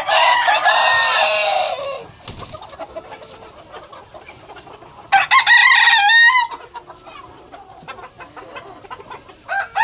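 Flock of young Siruvidai native roosters: one crows for about two seconds at the start, another crows about five seconds in, and a third starts crowing at the very end, with softer clucking from the flock between the crows.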